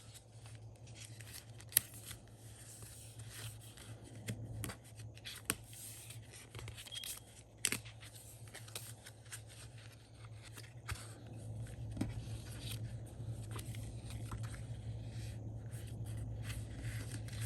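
Sticker book pages and sticker sheets being handled: soft paper rustles and a few sharp clicks, over a low steady hum that gets louder about two thirds of the way through.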